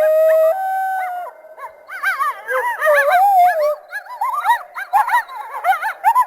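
Cynodictis creature sound effect built from coyote and hyena recordings: one held howl note, then a run of quick, overlapping high yips like a coyote chorus.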